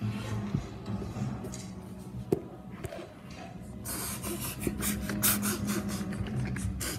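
Wooden toy subway cars rolling along wooden track, their wheels rattling and scraping on the wood. There is a low steady hum in the first few seconds, and quick scratchy clicks from about four seconds in.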